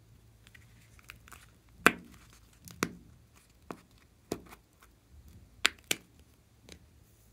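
Square plastic glitter tub being handled and its snap-on lid prised off: a string of sharp plastic clicks and snaps at uneven intervals. The loudest comes about two seconds in, and a quick pair of snaps near six seconds marks the lid coming free.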